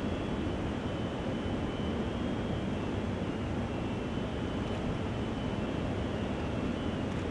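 Tsunami floodwater surging through town streets: a steady, unbroken low rushing noise of churning water.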